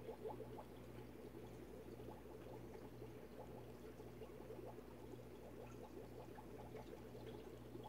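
Green plastic three-arm fidget spinner spinning in the hand as it is flicked, its bearing giving a faint, dense crackling rattle. A steady low hum runs underneath.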